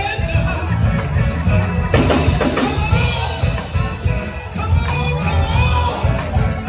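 Live band music with a drum kit and bass keeping a steady beat under pitched instruments.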